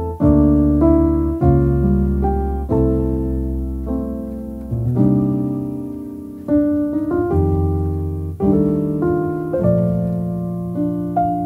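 Solo piano music: a new chord and bass note struck about every second or so, each ringing and fading before the next.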